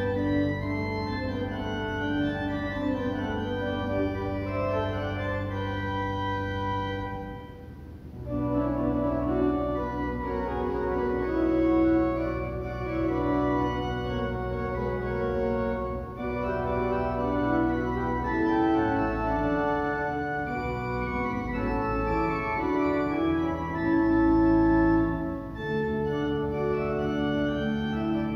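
Church organ playing slow, sustained chords, with a short break between phrases about eight seconds in.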